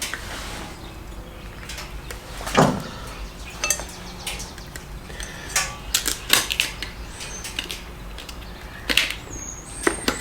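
Scattered clicks and knocks of metal parts and tools being handled while a motorcycle headlight is fitted, with one louder knock about two and a half seconds in.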